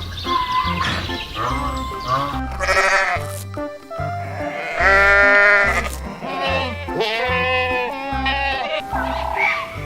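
Farm animal bleating, several wavering calls with the loudest about five seconds in, over background music with a steady bass beat.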